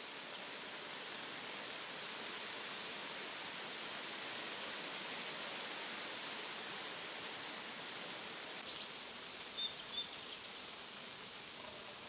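Steady outdoor ambience in a grassy field, an even hiss. A few short, high bird chirps come about nine to ten seconds in.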